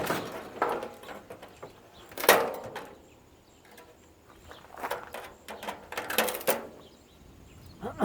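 Parts of a stripped air purifier being handled and knocked about, a few short scraping, clattering bursts, the loudest about two seconds in and a cluster of them near the end.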